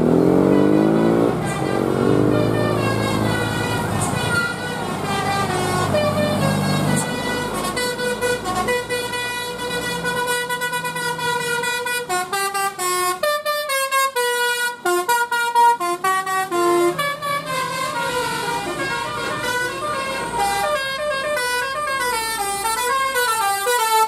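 Indonesian tour bus 'telolet' musical horn playing a long run of notes that step up and down in pitch, warbling quickly near the end, over the bus's engine.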